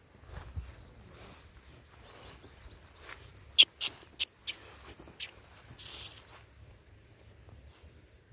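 Birds chirping: a quick run of small high chirps in the first couple of seconds, then several louder single sharp chirps between about three and five seconds in, and a brief hiss near six seconds.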